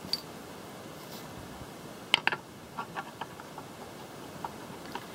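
Light clicks and taps of a cast-metal transmission servo cover being handled and set against the transmission case over a faint steady hiss, with a sharper double click about two seconds in and a few softer ticks after.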